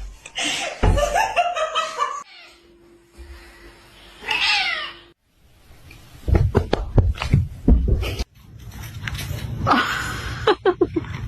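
Domestic cat meowing, with one falling meow about four and a half seconds in.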